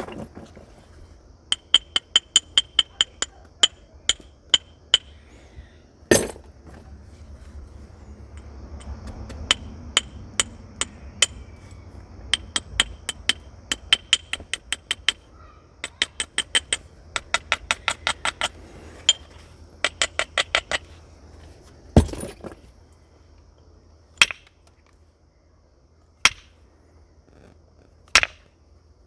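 Flintknapping of a flint biface with a natural percussor: runs of quick, light, ringing taps along the stone's edge, then a handful of heavier single strikes about two seconds apart that knock flakes off.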